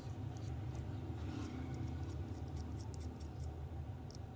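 A steady low hum, with a few faint light ticks and scratches as a soldering iron tip is drawn across the connector pads of a phone circuit board.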